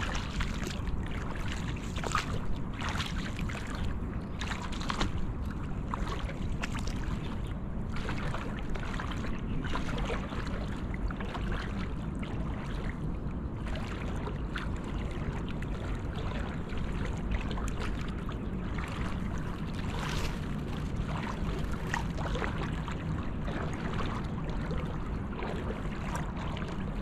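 Legs wading slowly through shallow estuary water: irregular sloshing and splashing of steps, over a low rumble of wind on the microphone.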